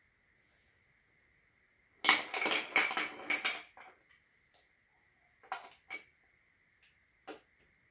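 Wooden chain-reaction toy pieces clacking as they are handled and set in place: a quick run of hard clacks about two seconds in, then a few single knocks.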